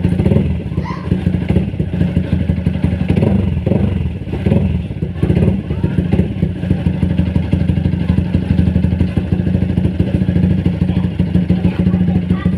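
Four-stroke motorcycle engine idling steadily on fresh fully synthetic oil, run to check an engine knock that the owner finds reduced but not yet gone.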